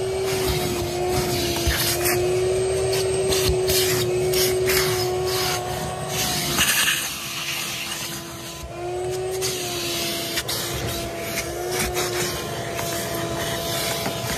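Vacuum cleaner running with its hose nozzle worked over a cloth car seat and its plastic trim: a steady motor whine over a rush of suction, with scraping and small clicks from the nozzle. The whine shifts in pitch now and then and drops away for a couple of seconds in the middle as the nozzle is pressed against the fabric and lifted off.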